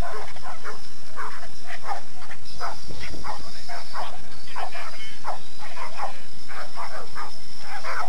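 Dogs on leads barking rapidly and without pause, about two or three barks a second, worked up by a decoy during protection training.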